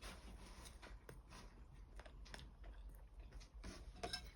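Faint chewing of a mouthful of pancake, with scattered soft clicks and a slightly louder knock or clink near the end.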